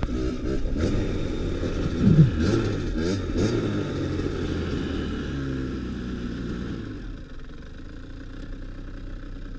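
2015 Kawasaki KX85's two-stroke single-cylinder engine revving up and down a few times as the bike slows and stops. About seven seconds in it settles to a quieter, steady idle.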